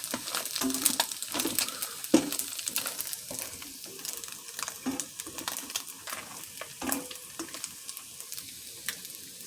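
Crab meat frying in butter in a pan: a steady sizzle and crackle, with the knocks and scrapes of stirring against the pan, which grow sparser after about four seconds.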